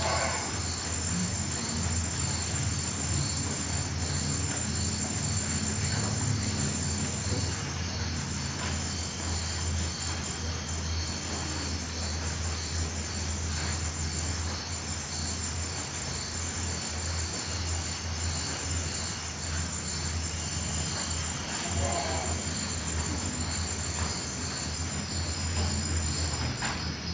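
Field crickets singing at night: a steady high trill with regular pulsing chirps over it, above a continuous low rumble.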